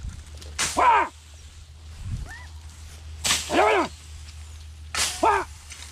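Beagles baying while chasing a rabbit on its scent: three short, arching bays, a couple of seconds apart.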